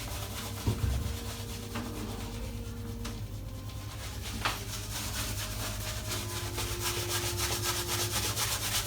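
Shaving brush rubbed briskly through a lather of shaving cream, a scratchy brushing sound that turns into quick repeated strokes in the second half. A single knock about a second in.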